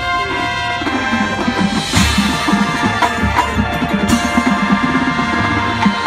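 High school marching band playing its field show: held brass and wind chords over drums and front-ensemble percussion, with heavy percussion hits about two and four seconds in.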